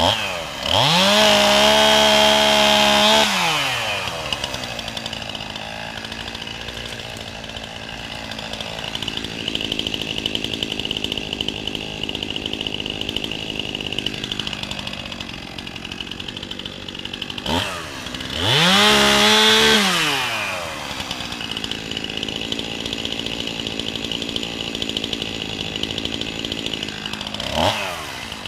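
Two-stroke chainsaw idling, revved up to full throttle twice for a few seconds each before dropping back to idle, with a few short throttle blips in between.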